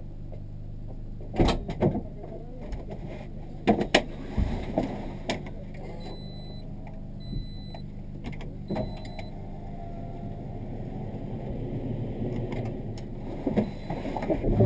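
Toyota GT86 rally car's flat-four engine idling, heard from inside the stripped cabin, with sharp clicks and knocks from the controls being handled. Three short electronic beeps come about halfway through, roughly a second apart.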